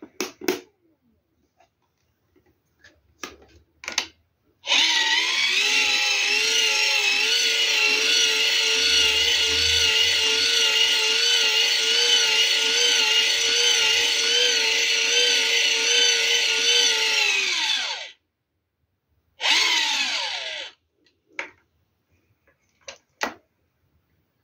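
A hand-crank generator whining as its crank handle is turned. A steady mechanical whine, wavering slightly with the cranking speed, lasts about thirteen seconds and winds down at the end. A second, shorter burst of cranking follows and also slows off, with a few clicks before and after.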